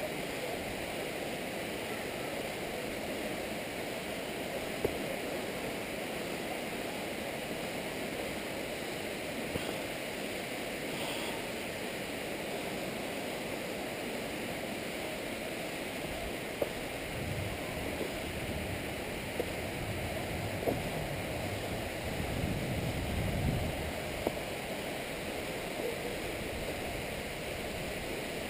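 Steady outdoor rushing noise, like wind or distant falling water, with a few low buffets in the second half.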